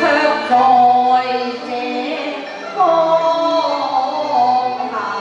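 Cantonese opera singing over instrumental accompaniment, with long held notes that slide down in pitch.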